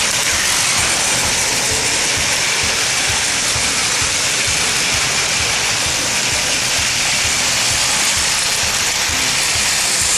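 Plarail toy trains running on plastic track: a steady whir of small electric motors and gears, with irregular low clicks from the wheels.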